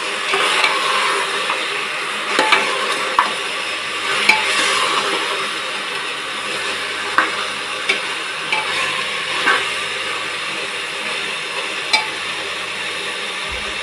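Mutton pieces frying and sizzling in a pressure cooker while a steel spoon stirs coarsely ground spices through them. The spoon clicks against the metal pot now and then, about ten times.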